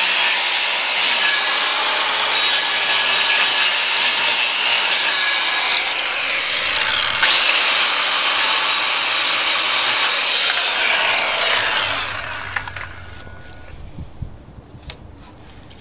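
Corded 12-amp circular saw running and cutting repeated crosscut kerfs into a pine 2x8 along marked lines to notch out a window sill. It runs loud and fairly steady, changing a little as it moves from cut to cut, then winds down about twelve seconds in.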